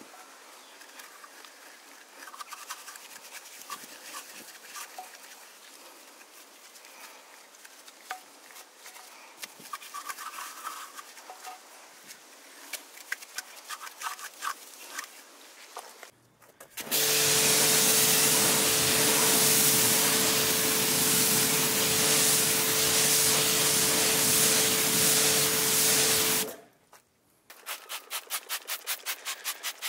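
Detailing brush scrubbing a wet alloy wheel coated in cleaner around its centre cap: a quiet rubbing with light clicks. About seventeen seconds in, a loud steady rushing hiss over a constant hum runs for about ten seconds and then stops. Near the end, quick rhythmic scrubbing strokes, about five a second, come from a brush working the tyre.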